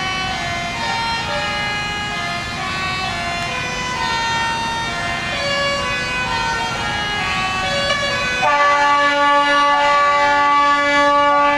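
Several truck air horns sounding together, overlapping held tones of different pitches that start and stop at different times over a low rumble. About eight and a half seconds in, the sound changes abruptly to a louder, steadier chord of held horn tones.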